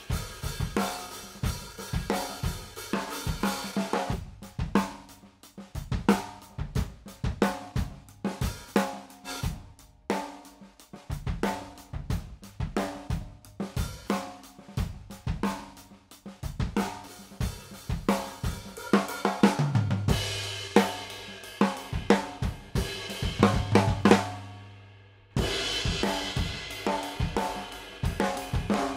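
Recorded drum kit loop (kick, snare, hi-hats and cymbals) played back in an A/B comparison, switching a few times between the dry drums and the drums through a UAD 1176LN Rev E FET compressor at 8:1 with the fastest attack and release, a setting that adds distortion. A low held note sounds for a few seconds around twenty seconds in.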